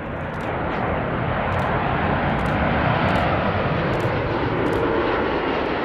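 Wide-body jet airliner's engines passing the spotter, a dense rushing jet noise that swells to its loudest about three seconds in and starts to fade near the end.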